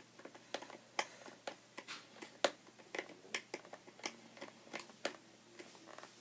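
Hand screwdriver turning a face-mask screw into the plastic shell of a football helmet: a run of light, uneven clicks and ticks, about three a second.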